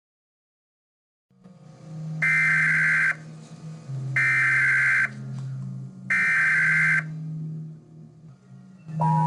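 Emergency Alert System SAME header: three buzzing data bursts of about a second each, a second apart, over a low steady hum, after a short dead silence. Right at the end the two-tone EAS attention signal begins.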